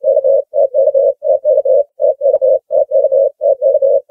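Ring-necked dove cooing: short, low coos in quick groups of three, about one group every 0.7 s, repeated steadily.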